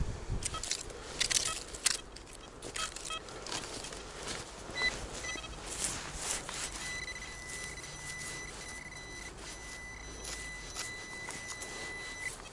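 Metal detector giving a few short beeps, then a steady high tone for about five and a half seconds that cuts off near the end, over scattered clicks and rustles.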